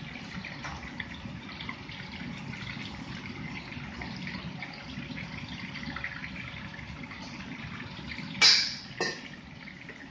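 Battered pork strips sizzling and crackling steadily as they deep-fry in a wok of hot oil, over a thin stream of water running from the range's tap into a pot. Near the end come two loud, sudden noises about half a second apart as a ladle is brought to the wok, the first the louder.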